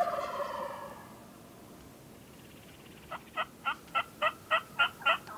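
A Merriam's wild turkey gobble, about a second long, at the start. About three seconds in comes a run of eight evenly spaced turkey yelps that get louder toward the end.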